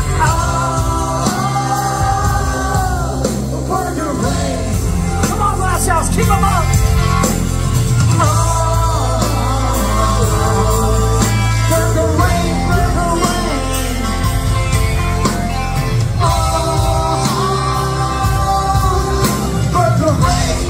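Ska-punk band playing live, a singer holding long notes over bass, drums and guitars, loud from within the crowd.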